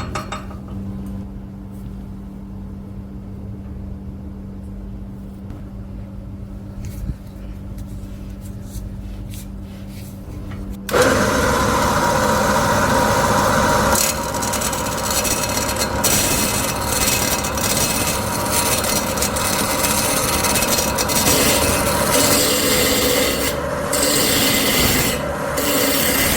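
A quiet stretch with a steady low hum, then about eleven seconds in a loud, continuous rasping and rubbing sound of a tool working against material starts abruptly and keeps going.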